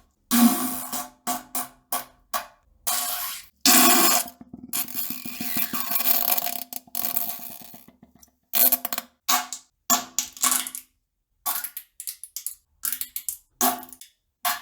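A string of fart sounds: a dozen or more short blasts, then a long raspy one about four seconds in that lasts around four seconds, then more short blasts, each cut off into dead silence.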